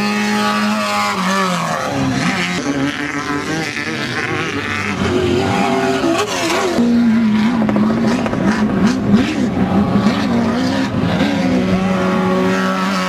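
Off-road race vehicles' engines running, several engine notes heard at once. One steady note drops in pitch early on, the pitches rise and fall through the middle, and another steady note drops near the end. Scattered sharp clicks come about two-thirds of the way through.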